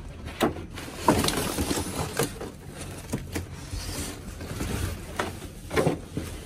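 Rummaging through trash: cardboard, plastic bags and a stiff sign board rustling and knocking as they are shifted about, with a string of sharp irregular knocks.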